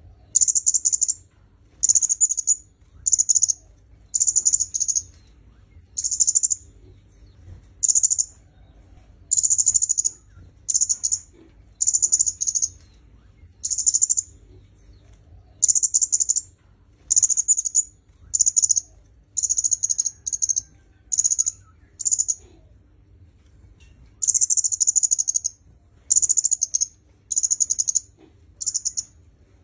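Red-headed kemade (kemade kepala merah) singing: short, high-pitched chirping phrases repeated roughly once a second, with a pause of about two seconds late on.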